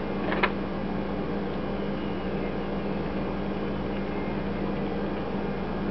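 Steady mechanical hum with a hiss, of the kind an electric fan motor makes, with one short click about half a second in.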